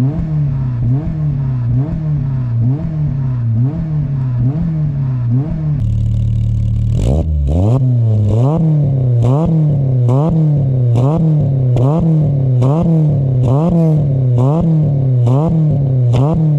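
Volkswagen Golf Mk2 engine held against an Omex rev limiter, the revs bouncing up and down about twice a second as the limiter cuts and restores the spark. About six seconds in the pattern changes and each bounce brings a sharp crack, the backfire in the exhaust when the spark comes back.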